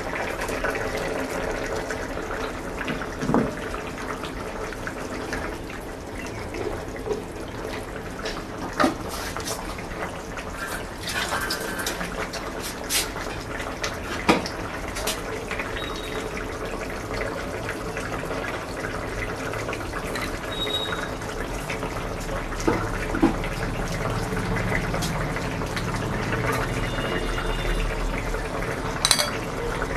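Potato and paneer curry bubbling at a boil in an open pan, a steady bubbling with scattered small pops.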